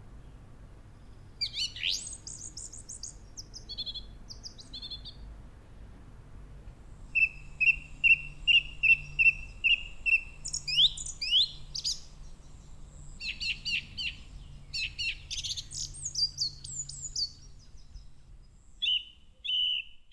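European robin singing: high, varied warbling phrases with short pauses between them, including a run of quick repeated notes midway, over a faint low hum.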